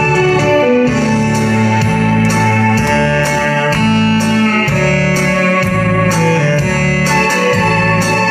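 A live band playing an instrumental break of a pop song, a guitar carrying the melody over bass and a steady drum beat.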